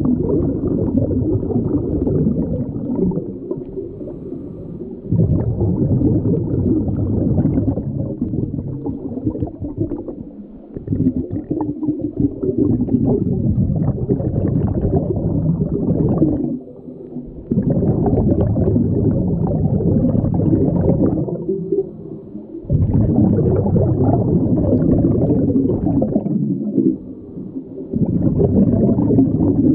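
Underwater bubbling and rushing of a scuba diver's exhaled bubbles from the regulator, coming in surges several seconds long with short quieter breaks between breaths.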